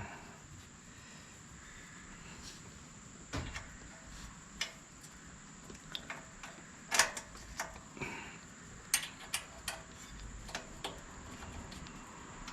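Irregular light clicks and taps of small metal valve-train parts being handled and fitted on the DuroMax XP13000HX generator engine's cylinder head, the sharpest about seven and nine seconds in.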